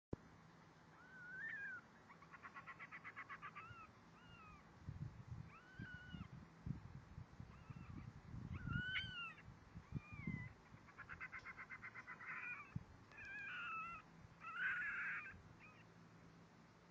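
Baby fennec fox vocalising: short high whining chirps that rise and fall in pitch, and twice a rapid stuttering trill of about seven pulses a second. A few low thumps sound in the middle.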